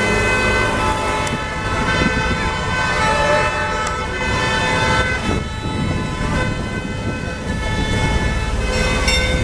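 Parading emergency vehicles sounding sirens and horns as they pass. Near the end a bell rings in quick, even strokes.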